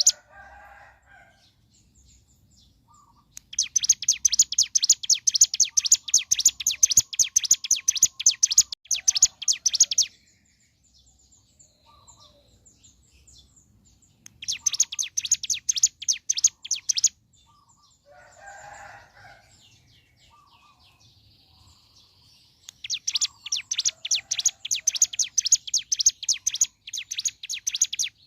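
Ciblek gunung (hill prinia) singing its rapid trilled 'bren' song: three long, fast bursts of sharp, high repeated notes, about six, three and five seconds long. Softer, lower chattering calls come in the gaps between them.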